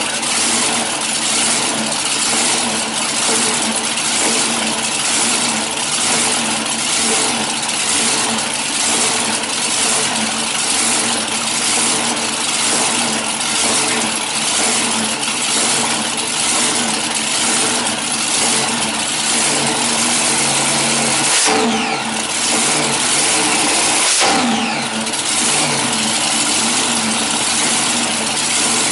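Supercharged V8 of a front-engine dragster idling loudly through open headers with a regular, lumpy beat while it warms up. It is briefly revved twice, about 21 and 24 seconds in, the pitch falling back each time.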